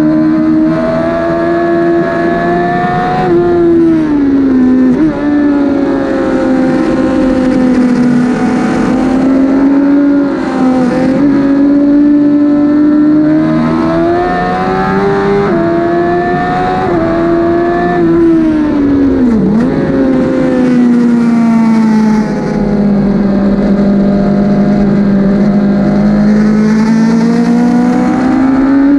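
2008 Suzuki GSX-R1000's inline-four engine at race pace, revving up and dropping in pitch with repeated gear changes, with sharp dips and recoveries into corners. It holds a long low-rev stretch about three-quarters through before climbing again near the end.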